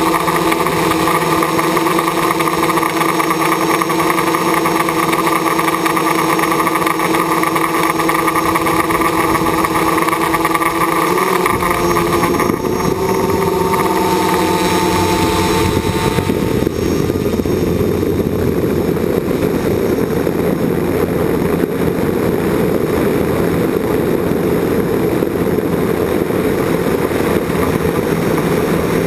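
Drone motors and propellers whining steadily, heard close up from the camera it carries. The pitch shifts about 11 seconds in, and after about 17 seconds the whine turns rougher and noisier as the drone's speed changes.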